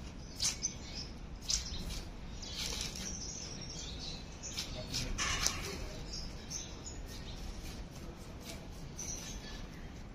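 Birds chirping in short, scattered calls over a steady low background noise.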